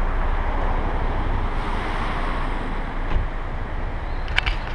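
Steady rushing of a rocky mountain river, with wind rumbling on the microphone. Two sharp clicks near the end.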